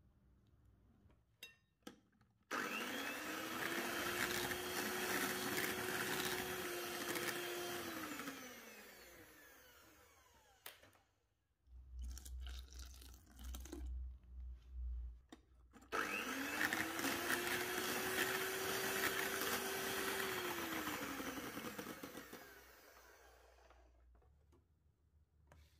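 Electric mixer motor run twice, each time for several seconds: it starts abruptly, its whine rises quickly and holds steady, then slows and fades as the motor winds down after being switched off. A few low knocks come between the two runs.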